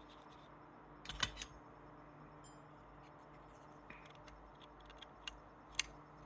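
A few faint clicks and taps from a small soldered circuit board being handled on the workbench, the loudest cluster about a second in, with scattered lighter ticks later, over a low steady hum.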